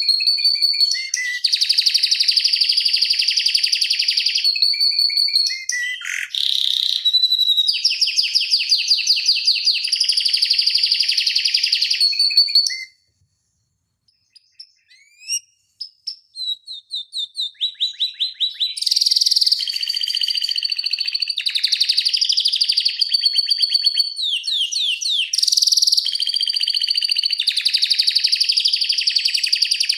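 Domestic canary singing a long rolling song of fast trills and held whistled notes. The song breaks off about 13 seconds in, then comes back with a few soft notes that build into rapid trills again some four seconds later.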